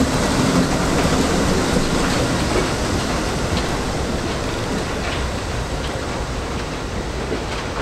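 NYC Subway rail adhesion train of R42 cars pulling away along the track, a steady wheel-on-rail running noise with faint clicks, slowly fading as it recedes.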